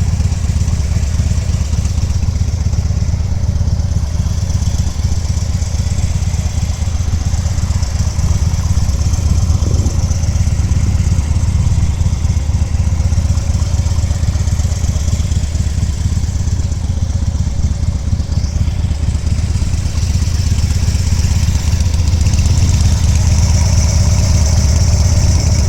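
2008 Harley-Davidson Dyna Low Rider's air-cooled Twin Cam 96 V-twin idling steadily through Screamin' Eagle mufflers, with a dense low pulsing from the exhaust. It gets a little louder in the last few seconds.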